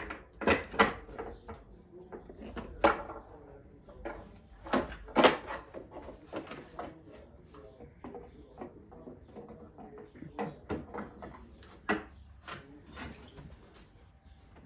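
Rhodesian Ridgeback puppies scuffling in a wooden box, knocking and bumping against its boards: a string of irregular sharp knocks, the loudest near the start, around the middle and a few seconds before the end.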